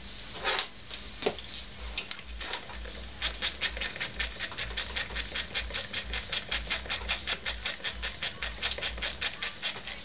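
A few separate metal knocks, then a ratcheting hand tool clicking steadily at about five clicks a second from about three seconds in, as a fastener on the carburetor mounting is turned.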